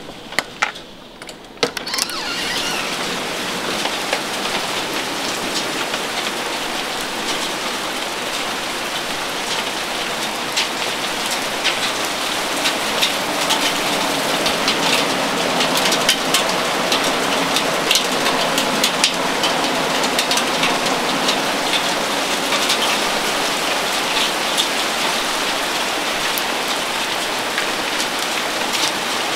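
Heavy rain and hail falling on a wooden deck and lawn: a dense, steady hiss full of sharp ticks of impacts. After a few knocks at the start, it gets much louder about two seconds in.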